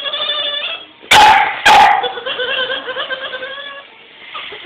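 Boston terrier whining in drawn-out, wavering moans, broken about a second in by two sharp barks half a second apart, then whining again until it fades near the end. It is vocalizing at its owner, demanding something.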